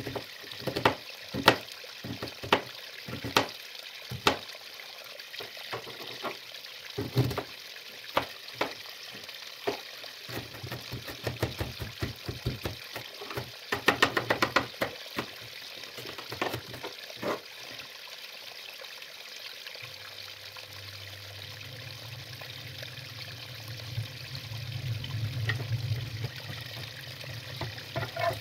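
Chef's knife cutting an onion on a plastic cutting board: sharp knocks of the blade meeting the board, about one a second, with a quick run of rapid chops about halfway through. The knocks stop about two-thirds of the way in, leaving a steady low hum.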